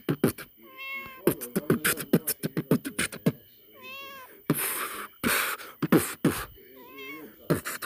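Beatboxing: a quick run of mouth-made kicks and clicks with a couple of hissing snares, and a cat meowing three times over it, about a second in, in the middle and near the end.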